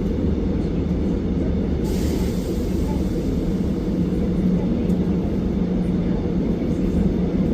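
Cabin running noise of an ageing Korail Suin-Bundang line electric train at speed: a steady low rumble with a constant hum. A hiss joins about two seconds in.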